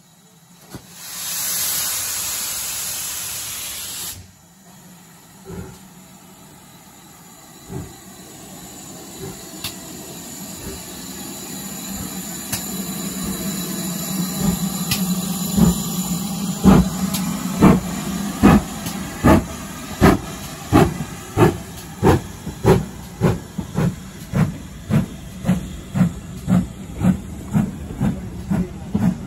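Steam locomotive starting a train: a loud hiss of steam for about three seconds that cuts off sharply, then the exhaust beats, slow and spaced at first, quickening to about one and a half beats a second as the train gets under way.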